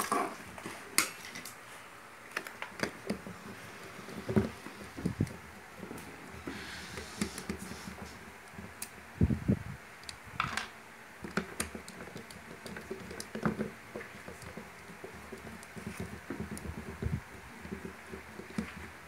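Scattered clicks, taps and knocks of hands handling a corded electric drill and working at its chuck with a tool, over a steady background noise; the drill's motor is not running.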